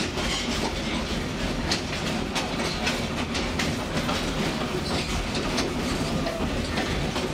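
Wooden open-sided passenger car of a tourist train rolling along the track: a steady rumble and rattle with irregular clacks and knocks of the wheels over the rails.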